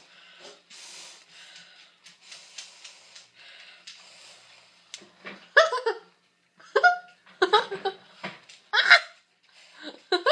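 Soft, breathy puffs of blowing into a homemade bubble-snake blower, a cut water bottle with a soapy cloth over its end, for about the first five seconds. Then a string of short, loud vocal outbursts, about five in the second half.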